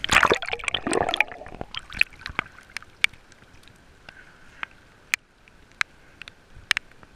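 Seawater sloshing and splashing against an action camera's waterproof housing as it bobs at the surface: a loud splash at the start, then a low hiss with scattered sharp drip-like clicks.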